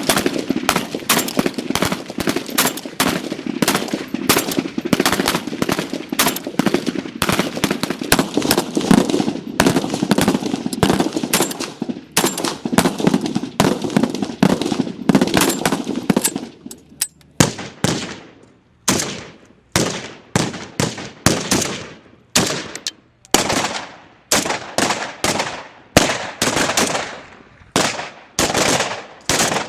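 AK-47 rifle firing: for about the first half, rapid bursts run together almost without a break. After that come single shots and short bursts about a second apart, each with a short fading tail.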